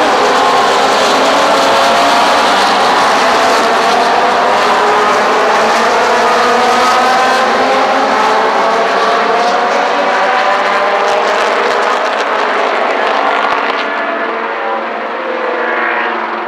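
A pack of historic Can-Am V8 and 2-litre sports racing cars accelerating hard together, many engines revving up through the gears at once. The sound is loud and fades somewhat near the end as the field pulls away.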